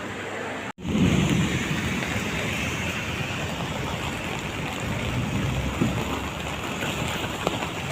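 Heavy rain falling, a steady hiss that begins abruptly at a cut about a second in.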